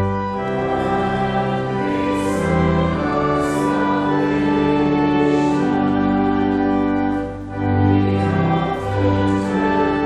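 A hymn sung by a group of voices with instrumental accompaniment, held notes moving slowly from one to the next, with the singers' 's' sounds heard a few times.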